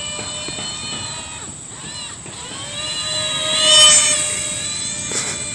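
Battery-powered electric motor and propeller of a styrofoam RC model airplane whining in flight. The pitch bends upward and the whine grows loudest about four seconds in, then eases.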